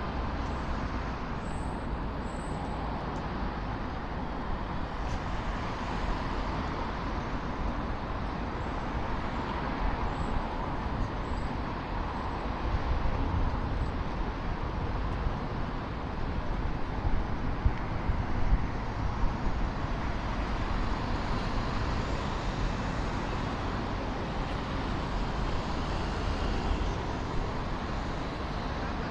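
Steady road traffic on a busy city avenue: a continuous noise of passing vehicles' engines and tyres, with a few short sharp peaks about two thirds of the way through.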